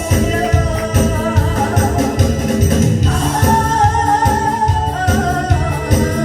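A song sung over a loud backing track with a steady beat. One note is held for a couple of seconds near the middle.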